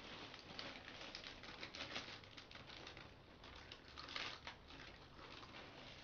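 Plastic snack wrappers crinkling and rustling as they are handled and opened, in quick, irregular crackles.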